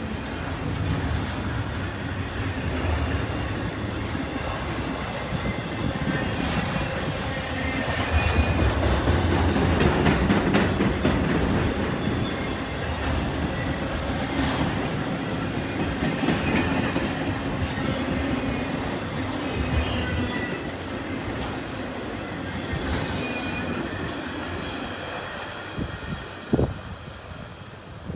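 BNSF intermodal freight train of double-stack container cars and trailer-carrying flatcars rolling past at speed: steady wheel-on-rail rumble with clickety-clack over rail joints and occasional faint wheel squeal. It grows fainter over the last few seconds, with a single sharp knock near the end.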